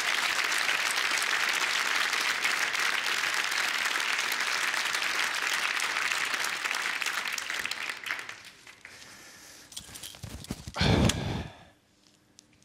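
Studio audience applauding, a dense clapping that dies away after about eight seconds. A brief loud burst of sound about eleven seconds in.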